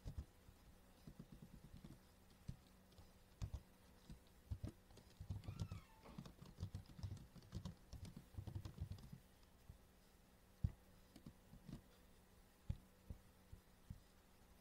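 Faint computer keyboard typing: quick runs of key clicks, thinning out to a few separate clicks after about ten seconds.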